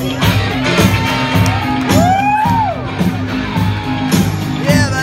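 Loud amplified pop music with a steady beat, and a voice singing long swooping notes over it.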